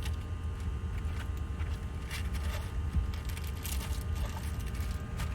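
Portable electric tyre inflator running steadily as it pumps up a freshly plugged car tyre, a constant motor hum over a low rumble.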